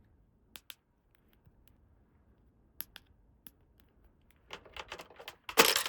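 Light clicks and taps of small plastic toy pieces being handled. A few are scattered, then a quicker run of them starts about four and a half seconds in, ending in a short, louder scraping rustle.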